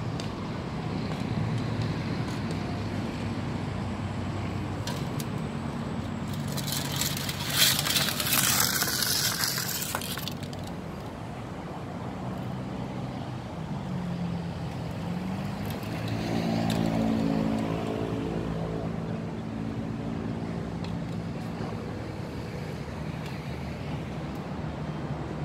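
An aerosol spray can hisses for about four seconds as its nozzle is pressed, starting and stopping abruptly, over a steady low hum of road traffic. Past the middle a vehicle engine's note rises and holds for a few seconds.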